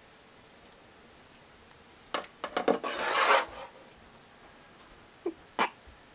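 Close rasping and rubbing on cat fur: a few short rough strokes, then a longer rub about three seconds in, followed by two short clicks near the end.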